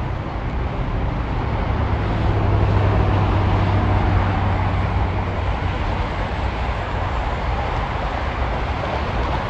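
Deep, continuous jet rumble of a Boeing KC-46A Pegasus's twin turbofan engines at go-around power as the tanker climbs away, swelling a couple of seconds in and then easing slightly.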